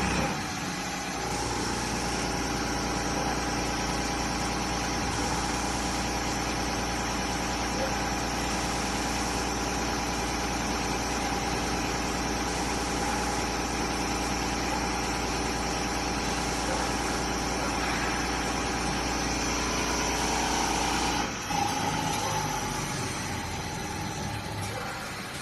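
Common rail injector test bench running, its drive motor and pump giving a steady mechanical hum. The sound drops briefly and changes about 21 seconds in.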